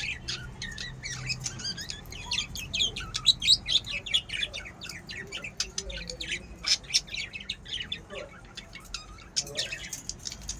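A flock of pet budgerigars chirping and chattering, with many quick, overlapping high calls throughout and a few louder squawks.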